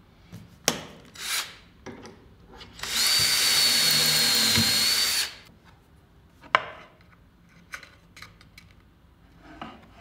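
Drill running for about two and a half seconds with a steady high whine, boring through the Clamex P-10 drill jig into a laminated panel. A few clicks come from setting the jig before it. A single sharp click follows later as a Clamex P connector fitting is pressed into its groove.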